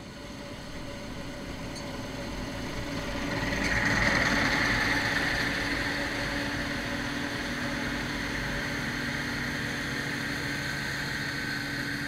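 John Deere 9670 STS combine harvesting wheat: its engine and threshing machinery run as a steady drone with a steady hum, growing louder as it passes close by about four seconds in, then holding steady.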